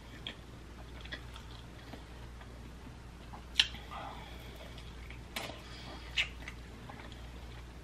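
Close-up mouth sounds of eating a honey barbecue rib: a sharp smack about three and a half seconds in as she bites into the meat, then quiet chewing with a couple more short smacks.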